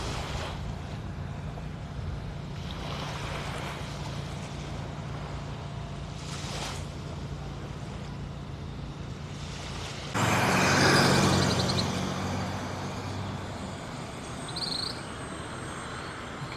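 A motor vehicle's engine hums steadily. About ten seconds in, a loud hissing rush starts abruptly and fades away over about three seconds.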